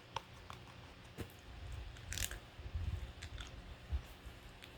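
Faint close-up handling noises: scattered small clicks and light bumps, with one brief rustle about two seconds in.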